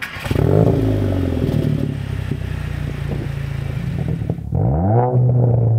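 VW Golf Mk8 GTI's 2.0-litre turbocharged four-cylinder engine running through an Armytrix valvetronic turbo-back exhaust with a 200-cell sport catalytic converter. The car is stationary. Its note rises briefly just after the start, then settles to a steady idle. About four and a half seconds in, the throttle is blipped and the revs climb quickly and hold higher.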